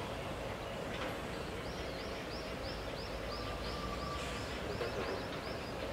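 Steady outdoor background noise with a bird giving a quick series of high chirps, about five a second, from about a second and a half in until near the end.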